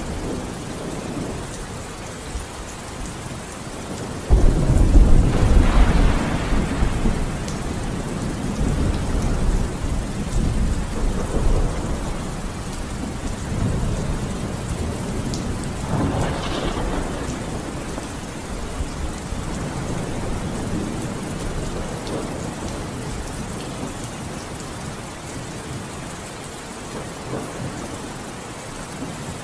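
Thunderstorm recording: steady rain with rolling thunder. A loud thunderclap breaks about four seconds in and rumbles for a few seconds, and a weaker roll follows around the middle.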